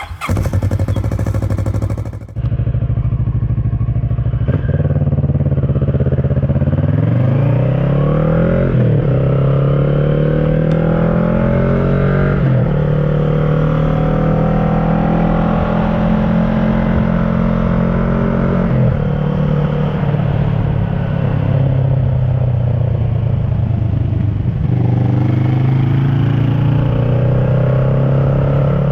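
2010 Kawasaki ER-6n's parallel-twin engine through an SC Project carbon exhaust with the dB killer fitted. It idles steadily for the first few seconds, then pulls away, its pitch rising through the gears and dropping at each of several upshifts.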